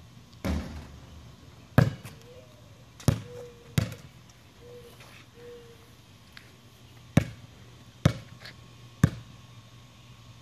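Basketball bouncing on a concrete driveway: six single sharp bounces in two groups of three, roughly a second apart. There is a longer, duller thump about half a second in.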